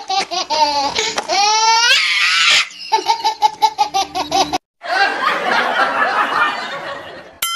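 Dubbed-in comedy laughter sound effect: a fast, rhythmic staccato laugh, with rising squeaky glides between about one and three seconds in. After a brief gap near the middle comes a denser stretch of laughter, and a warbling cartoon tone starts right at the end.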